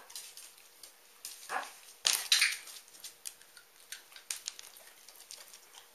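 Dogs making short vocal sounds while playing. A brief sound about a second and a half in is followed by a louder, noisier one about two seconds in, with scattered light clicks throughout.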